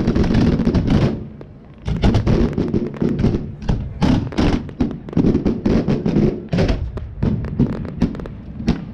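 Professional fireworks display: a rapid, dense run of bangs from shells, many a second, with a brief lull about a second and a half in before the bangs pick up again.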